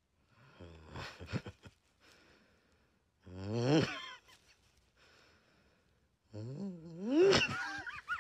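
A man's exaggerated mock crying: three drawn-out wailing sobs, each sliding up in pitch, the last the longest.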